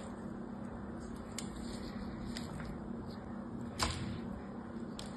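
A bar of hard soap being handled on a paper-covered surface: a few light taps and clicks, with one soft knock a little under four seconds in, over a steady low background hum.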